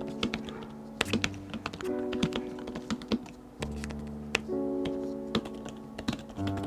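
Typing on an Apple iPad Smart Keyboard Folio: a run of irregular key presses, soft clicks and taps, over background music with held chords.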